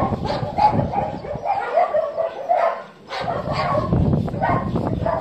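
Dogs barking repeatedly in a run of short barks, about three a second, with a short break about three seconds in. After the break a low rumbling noise runs under the barks.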